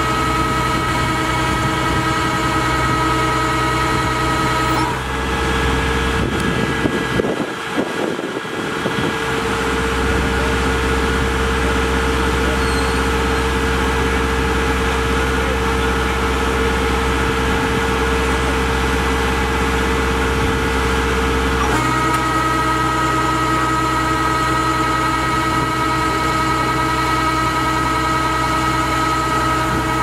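Kubota DC-70G Plus combine harvester's diesel engine running at a steady speed, with a constant high whine over the engine note, while the grain-unloading auger feeds rice into sacks. The tone shifts abruptly about five seconds in and back about 22 seconds in, with a brief uneven disturbance around seven to nine seconds.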